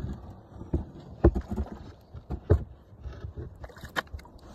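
Irregular knocks and thumps on a plastic kayak's hull, with three sharper hits roughly a second and a quarter apart and softer bumps between.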